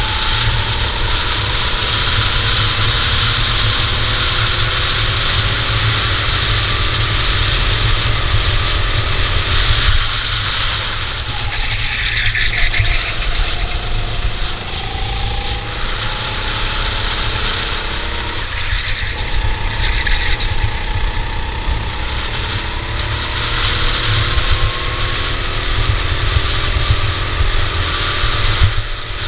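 Cadet racing kart engine running at race pace, its pitch rising and falling over and over as it speeds up and slows through corners, over a constant low rumble.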